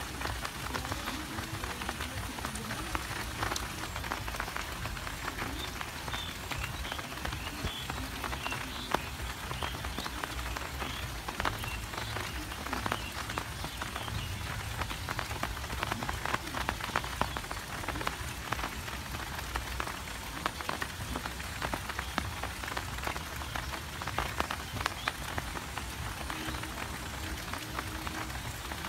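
Steady rain falling, a continuous hiss dense with the patter of individual drops, even in strength throughout.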